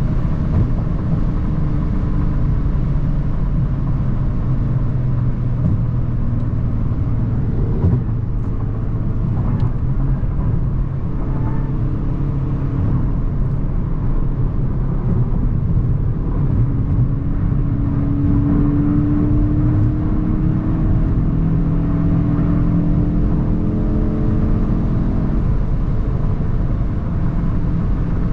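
Mk8 Volkswagen Golf GTI's turbocharged 2.0-litre four-cylinder engine running while the car is driven, a steady low drone with road noise. The engine note climbs in pitch under acceleration about two-thirds of the way through.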